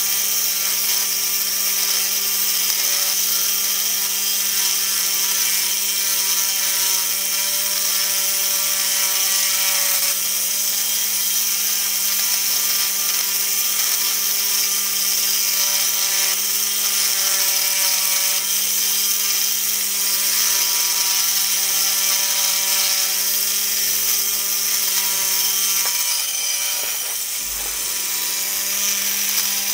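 Small electric drill running steadily as its 3 mm bit bores into an 8 mm ruby ball: a steady hum with a high hiss, dipping slightly near the end.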